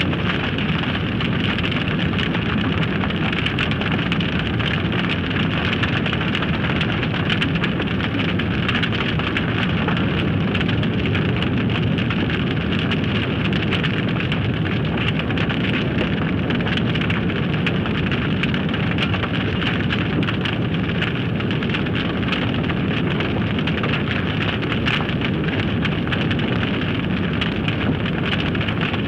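Forest fire burning: a steady rushing noise thick with quick crackles and pops throughout.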